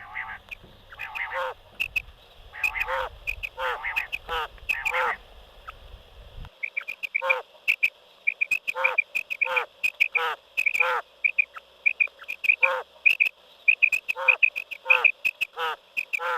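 Wild quails calling over and over, many calls in quick succession, each made of short high notes and quick downward-sliding notes. A low rumble sits under the first six seconds and cuts off suddenly.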